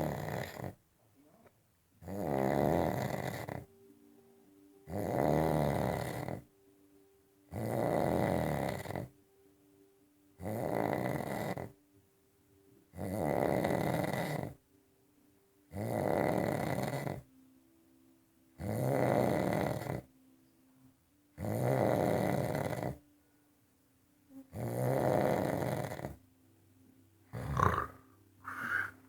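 A sleeping man snoring loudly in deep sleep: about ten long, rasping snores at an even rhythm of roughly one every 2.7 seconds, then two shorter, sharper snorts near the end. A faint steady hum sits underneath between snores.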